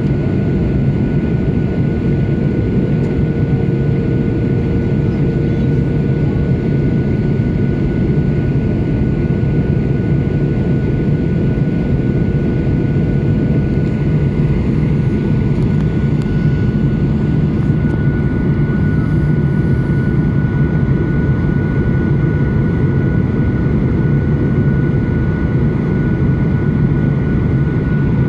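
Cabin noise of a Boeing 737 descending on approach, heard inside the cabin by the wing: a steady low rumble of engines and airflow with a steady high whine over it.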